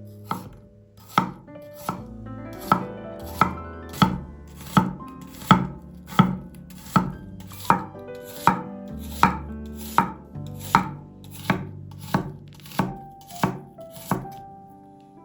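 Kitchen knife chopping on a cutting board in slow, even strokes, about twenty cuts roughly 0.7 seconds apart, over soft background music.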